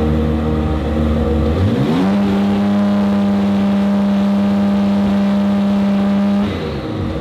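BMW M4 GT3's twin-turbo straight-six running steadily at low revs, revved up about two seconds in and held at a constant higher pitch for about four and a half seconds, then dropping back to its lower note near the end.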